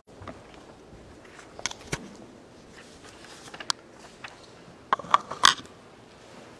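Paper rustling close to a lectern microphone as sheets are shuffled and handled: scattered soft crinkles and light knocks, with the loudest crackles about five seconds in.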